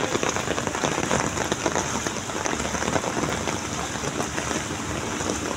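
Heavy rain pelting onto flooded pavement and standing water: a dense, steady patter of countless drops.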